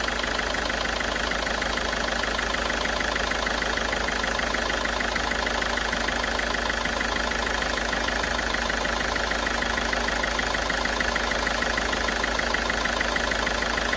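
Ford Figo turbo-diesel engine idling steadily, with an even, fast ticking running through it. It is part-way through a carbon-cleaning treatment fed into the intake, and its engine note is running clear, with the earlier misfire much reduced.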